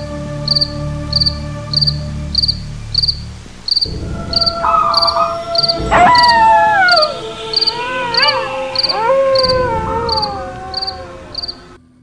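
Eerie sound-effect bed: a cricket chirping steadily, about one and a half chirps a second, over a faint drone, with a low rumble that stops about four seconds in. From about six seconds in, a long wavering wail slides down in pitch again and again and is the loudest thing, fading out just before the end.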